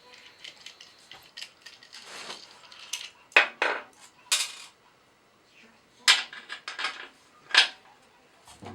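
Small metal hardware clinking and knocking as it is handled and fitted: a string of sharp, irregular clinks, the loudest coming in clusters about three to four and a half seconds in and again from six to seven and a half seconds.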